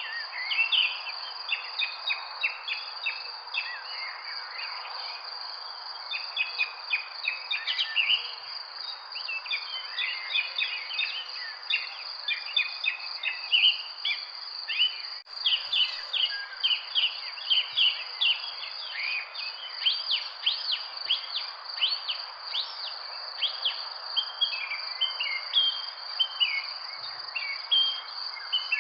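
Many birds chirping in quick, short notes, over a continuous high-pitched insect trill and a steady background hiss. The sound cuts out for an instant about halfway through.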